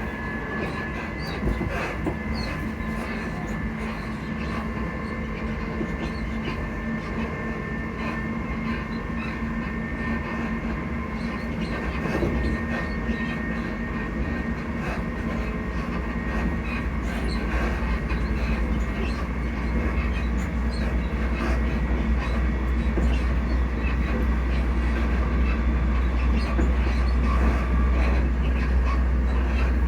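Class 334 Juniper electric multiple unit heard from inside while running, its traction motors humming in several steady tones over the wheel-and-track rumble. The low rumble grows louder through the second half.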